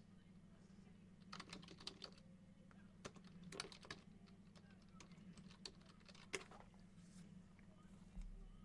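Faint, irregular clicks and taps, a dozen or so spread unevenly through a near-silent stretch, over a low steady hum.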